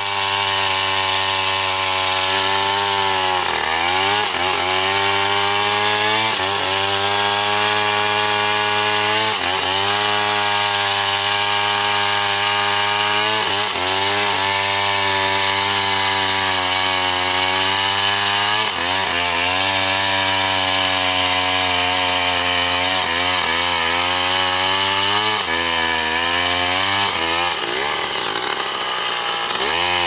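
Two-stroke Stihl chainsaw running at full throttle while cutting through a felled tree trunk. Its engine pitch dips again and again as the chain bogs down in the wood, then climbs back up.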